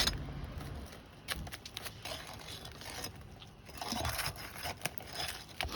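Roof shingles being pried and worked loose with a nail bar: irregular scraping, crackling and small clicks.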